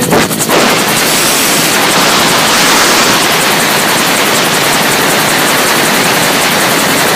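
Helicopter running close by, a loud steady rushing noise with a faint rapid beat from the rotor.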